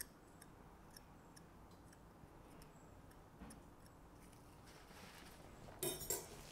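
Near silence with faint, scattered light clicks from a metal dental probe touching the tooth and filling material. About six seconds in, a short burst of hiss.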